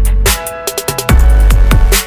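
Loud electronic music with a deep bass and a fast drum beat; the bass drops out briefly about a quarter of a second in and comes back about a second in.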